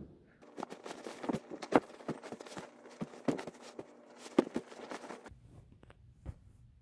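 A padlock and a hostel locker being handled: a run of irregular clicks and knocks for about five seconds, then a few faint ticks.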